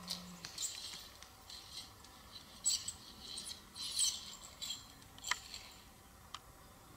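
Soft scratching and rustling with a few small clicks: a diameter tape being pulled around a tree trunk and handled against the bark to measure diameter at breast height. Two sharper clicks come near the end.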